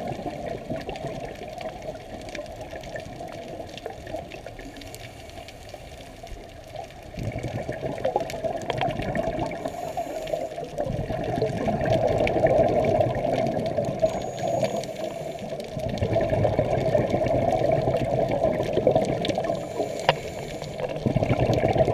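Muffled underwater noise through a camera housing, with long rushes of scuba divers' exhaled regulator bubbles. The bubbling is quieter for the first several seconds, then comes in louder rushes of a few seconds each with short gaps between.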